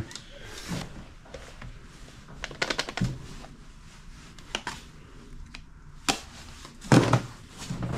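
Scattered clicks, rustles and clatters of plastic toys being handled and sorted out of a cardboard box, with a louder clatter about seven seconds in.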